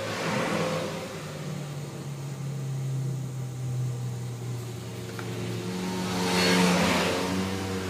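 Electric motor of a handheld wood router running on a test, its pitch shifting and rising for a while near the end. It runs smoothly with no catch heard, though the armature shows wear from rubbing against the stator.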